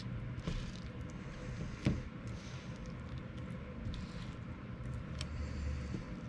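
Scattered light clicks, taps and soft rustles of hand work laying up carbon fibre in epoxy, the sharpest click about two seconds in, over a steady low hum.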